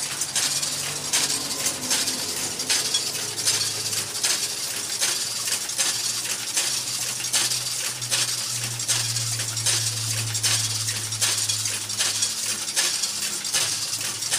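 Homemade plastic-mulch hole-punching machine running: a low steady hum under an evenly spaced run of metallic clacks as it punches planting holes in the mulch film.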